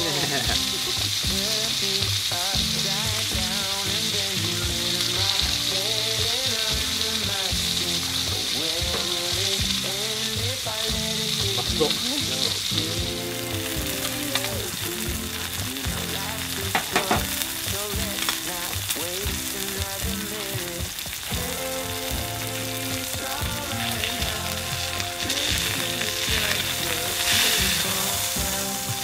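Sirloin steak sizzling and frying on a cast-iron plate, loudest in the first half and quieter after that, with a few sharp clicks around the middle. A background song plays underneath.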